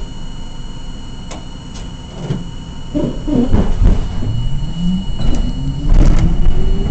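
Interior of an R42 subway car: a few knocks, then the traction motors whine, climbing steadily in pitch and growing louder as the train accelerates.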